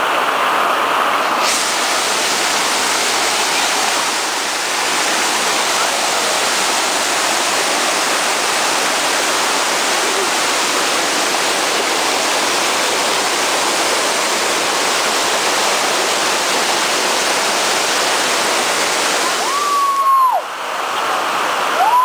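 Small waterfall, a stream cascading over large boulders: a steady, loud rush of water.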